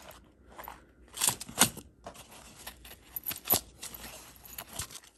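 A necklace being handled by hand: small metal clicks of the chain and pendant among light rustling, with the sharpest clicks at about a second in, about a second and a half in, and about three and a half seconds in.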